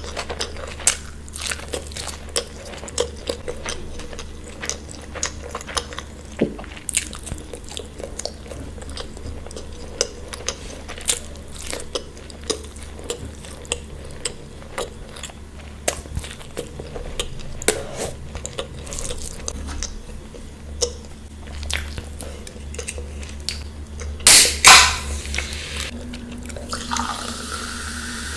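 Close-up chewing and crunching of food, with many short sharp clicks throughout and one louder crunch near the end. Right after it comes a steady rush of liquid being poured.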